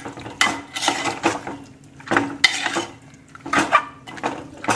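A spoon scraping and knocking against an aluminium pot while stirring raw mutton pieces with salt, turmeric and ginger-garlic, in irregular clusters of clinks and scrapes every half second to a second.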